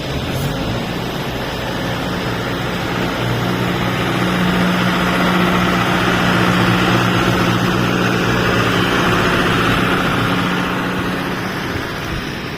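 Heavy engine of road-works machinery running steadily, with a low hum that swells for a few seconds in the middle and then eases.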